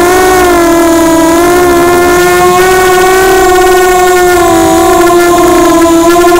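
ImmersionRC Vortex 285 FPV racing quadcopter's motors and propellers whining loudly right by the onboard camera: a steady, many-toned hum whose pitch wavers slightly up and down with the throttle.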